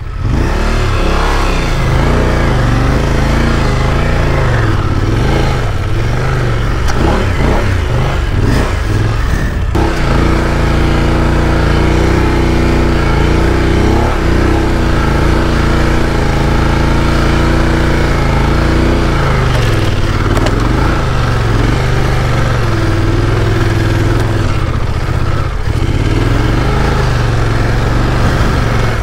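Off-road motorcycle engine running hard under load in deep sand, its pitch rising and falling again and again as the throttle is worked to keep momentum.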